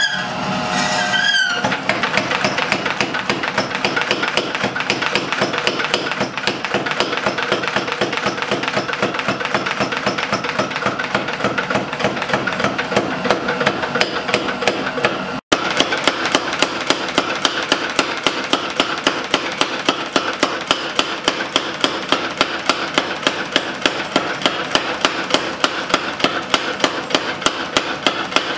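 Mechanical power hammer pounding a red-hot white steel chef's knife blank in a fast, even run of blows, forging the blade to shape. The blows break off for an instant about halfway, then go on as sharp, regular strikes.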